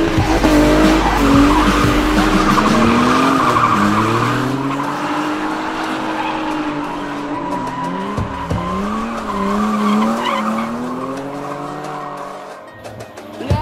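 Drift cars sliding sideways through a corner, one after another, with tyres squealing and engines revving hard, the engine note rising and falling again and again as the throttle is worked.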